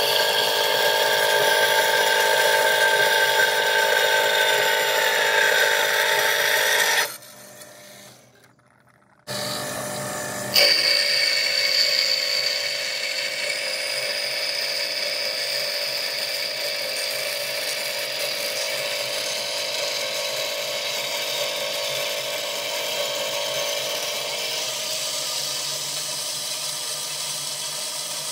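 Metal-cutting band saw blade running through steel angle iron under coolant, a steady high-pitched cutting sound with several held tones. It breaks off about seven seconds in and comes back a few seconds later.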